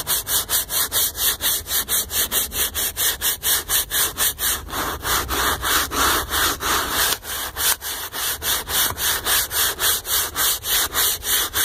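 Stiff-bristled hand scrub brush scrubbing a wet, soapy leather car seat in quick back-and-forth strokes, about five a second.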